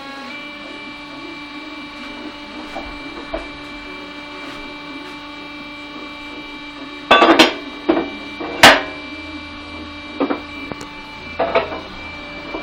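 Sike S-520 truck tyre changer running with a steady motor hum. About halfway through come several loud metal knocks and clanks, the loudest a cluster about seven to nine seconds in and a few more shortly after.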